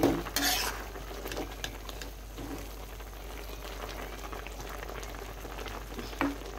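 Spinach and koi fish curry bubbling at a steady boil in a karai, with a metal spatula stirring through it and scraping the pan, loudest once about half a second in.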